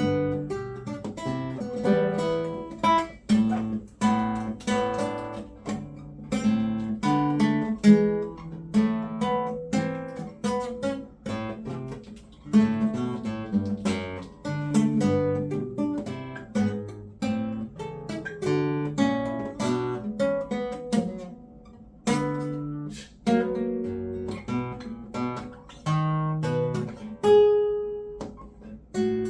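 Acoustic guitar played in a fast run of quickly picked and strummed notes.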